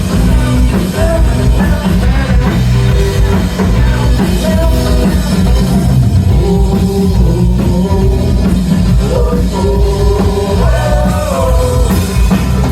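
Live rock band playing loud and steady: drum kit and bass under a melodic line, in an instrumental stretch between sung verses.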